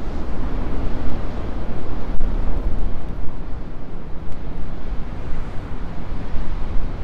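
Heavy surf breaking against rocks, a constant rough roar that swells and eases as the waves hit, with wind buffeting the microphone.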